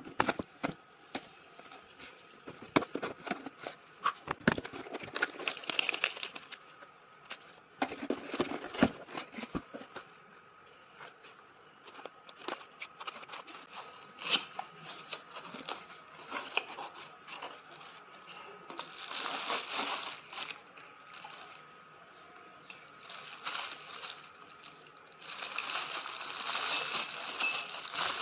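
An alarm clock and its packaging being handled and unpacked: scattered taps and clicks of cardboard and plastic, with stretches of rustling and crinkling of wrapping about two-thirds of the way through and again near the end.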